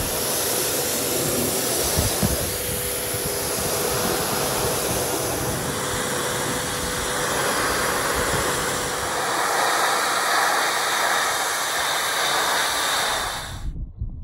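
Pressure washer jet spraying hard against metal shutter slats: a loud, steady hiss of water that stops abruptly near the end.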